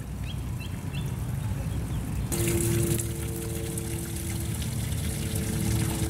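Water trickling and splashing down a small rock cascade into a garden pond, growing louder about two seconds in, with a steady two-note hum alongside from then on. A few short high chirps sound in the first second.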